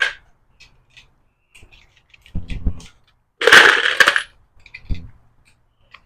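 Loose 9mm cartridges clicking and clinking as magazines are loaded, with a louder rattle of rounds about three and a half seconds in.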